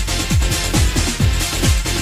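Electronic dance music with a steady kick drum, about two beats a second.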